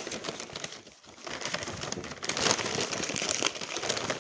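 Paper fast-food bag and wrapper rustling and crinkling as a burger is handled and taken out, getting louder about a second in.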